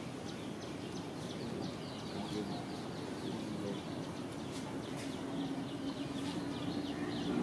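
Small birds chirping rapidly outdoors: a quick run of short, high, falling chirps, several a second. A low steady hum joins in near the end.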